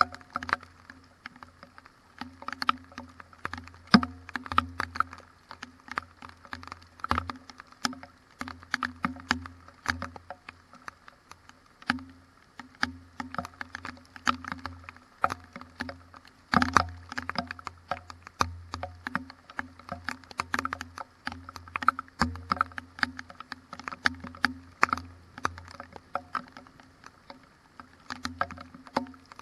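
Raindrops striking close to the microphone in a thunderstorm: a dense, irregular patter of sharp ticks, over a low steady hum.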